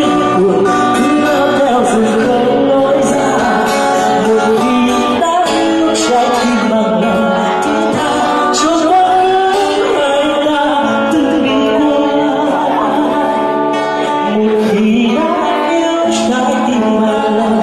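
A man singing into a microphone to an acoustic guitar accompaniment, the song running without a break.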